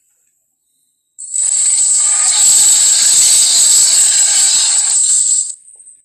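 Animated-film Tyrannosaurus sound effect: one loud, harsh hissing cry, mostly high and airy, starting about a second in and lasting about four seconds before cutting off.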